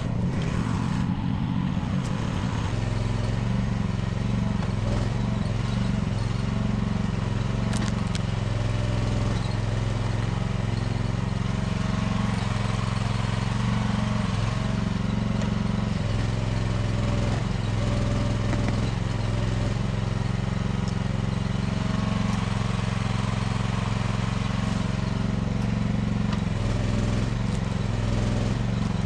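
Small engine of a budget mini excavator running steadily at a constant speed.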